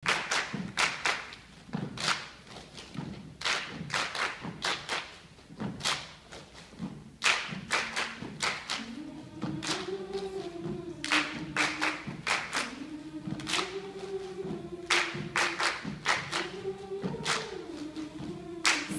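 Choir clapping a rhythm with thumps. About nine seconds in, the voices come in with a sustained sung melody while the claps carry on.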